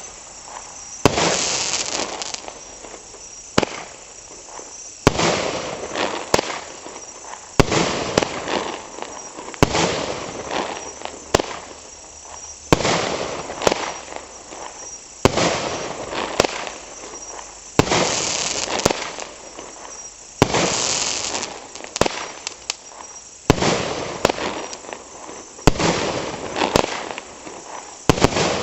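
Fireworks firing shot after shot, about one every second or so, each a sharp bang followed by a short crackling hiss.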